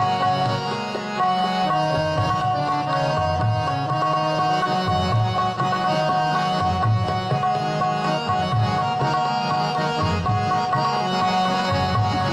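Instrumental Indian music with no singing: sustained melodic tones over a steady, regular drum beat.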